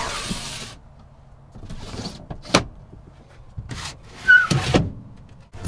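Handling noises: a short hiss, then a few separate knocks, and a loud scraping rub with a brief squeak just after four seconds in, ending in a click.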